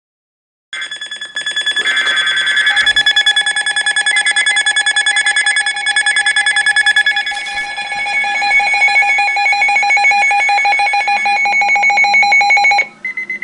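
Weather radio alert alarm: a loud, rapidly pulsing electronic beeping that starts just under a second in, runs about twelve seconds and cuts off suddenly, signalling an incoming weather warning.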